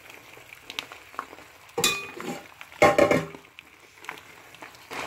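Wooden spatula stirring and scraping sticky rice in syrup in a frying pan, with two louder clatters against the pan about two and three seconds in.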